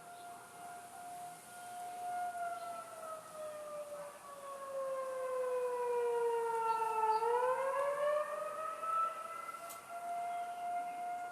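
Outdoor tornado warning siren sounding one tone. The tone holds, slides down in pitch over about five seconds, then swings quickly back up and holds again. It is loudest in the middle.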